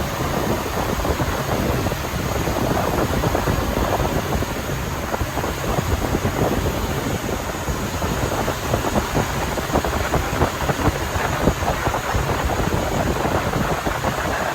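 Wind buffeting the microphone aboard a sailboat under way at sea: a dense, steady rush with rapid gusty flutter.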